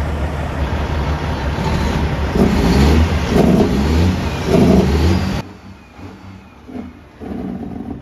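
Semi-truck diesel engine running loudly, with three louder bursts about two to five seconds in. Then an abrupt cut to a quieter truck engine idling.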